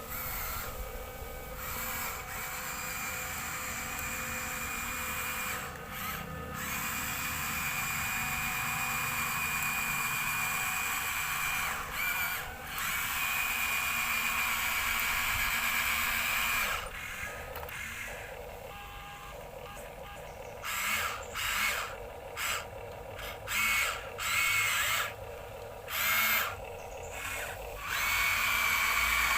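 Small electric motors and gearboxes of radio-controlled toy construction vehicles whirring with a high whine. They run steadily for the first half with a couple of brief pauses, then in short start-stop bursts in the second half.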